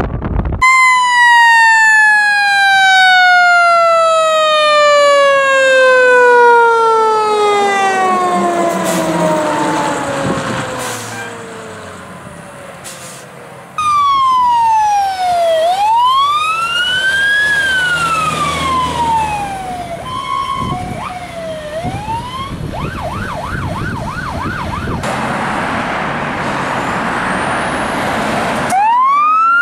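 Fire apparatus sirens across several clips. First, a mechanical siren winds slowly down in pitch over about eleven seconds. Then an electronic siren wails up and down, with a brief steady horn-like tone and a fast yelp. Near the end another siren starts rising in a wail.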